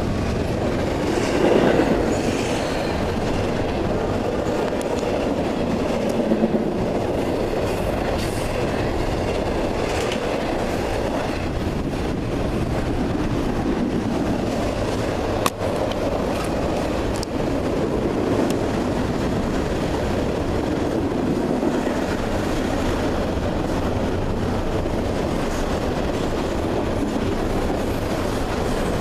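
A CSX freight train's cars rolling steadily past, with a continuous rumble and clickety-clack of steel wheels on the rails and a faint wheel squeal near the start.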